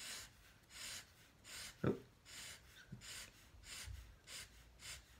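Black felt-tip marker drawing short hatching strokes on sketch-pad paper: a scratchy stroke about every half second, quickening near the end. One brief louder sound comes about two seconds in.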